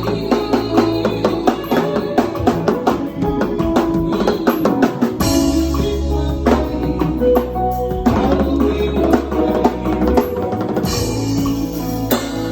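Drum kit played in a busy groove with many rapid hits, along with music that carries a bass line and other pitched instruments.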